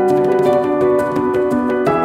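Background music of sustained chords, moving to a new chord near the end.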